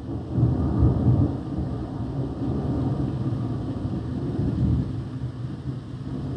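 Thunder rumbling low and rolling during a thunderstorm, swelling about half a second in and staying up for several seconds, with rain hissing faintly underneath.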